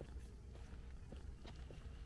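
Footsteps on a paving-stone path, soft regular steps about two a second, over a low steady rumble.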